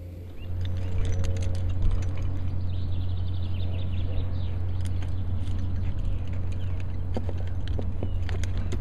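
Steady low rumble, as of wind on the microphone, with scattered light clicks and knocks from a climber moving up the rock and his gear, denser near the end.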